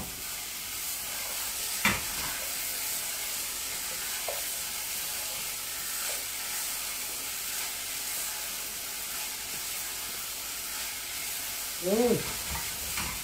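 Diced potatoes frying in oil with a celery, carrot and onion base, sizzling steadily while a wooden spoon stirs them in the saucepan as they brown. There is a single knock about two seconds in.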